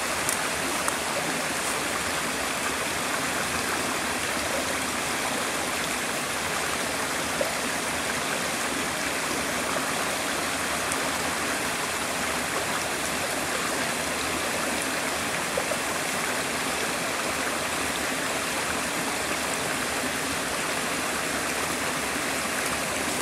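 Small rocky brook running steadily, its water rushing over stones in a shallow riffle.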